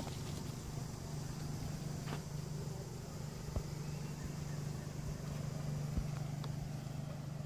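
Motor scooter engine running steadily with an even low hum, with a few faint knocks over it.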